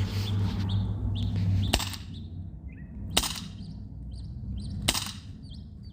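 Three sharp shots from a CZ 75 P-07 airsoft pistol, about a second and a half apart, with birds chirping in the background.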